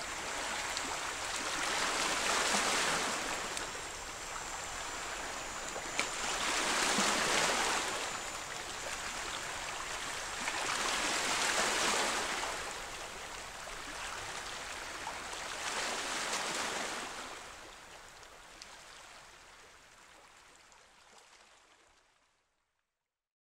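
Small waves washing in over and around rocks at the water's edge, surging about every four to five seconds, then fading out near the end.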